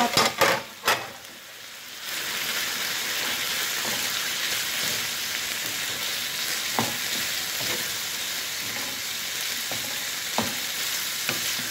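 Chicken breast pieces sizzling in hot oil in a nonstick frying pan while being stirred with a wooden spatula. A few quick knocks of the spatula against the pan come at the very start. The sizzle dips about a second in and comes back steady at about two seconds, with more single knocks near the end.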